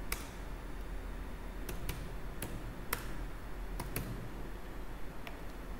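Computer keyboard keystrokes: about eight separate, irregularly spaced key clicks over a steady low hum.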